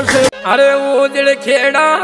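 Music: a melodic track with a beat, whose bass and drums drop out about a third of a second in, leaving the melody line on its own.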